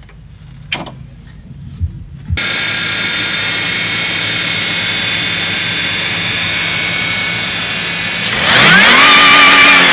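Supercharged Toyota Land Cruiser V6 with a TRD supercharger. After a few faint clicks it starts up about two seconds in and runs steadily with a high supercharger whine over the engine note. Near the end it is revved, and the whine and engine note rise together and hold.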